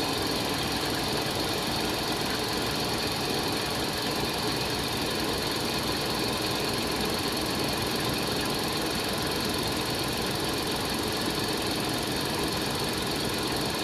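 Toolroom lathe running steadily, its spindle turning the stock with the power carriage feed engaged, slowly carrying the parting tool toward the part. An even, unchanging machine running sound with a constant hiss.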